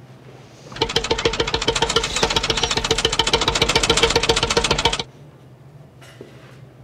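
A machine running with a loud, fast, even rattle and a steady pitched tone. It starts about a second in and cuts off abruptly about four seconds later.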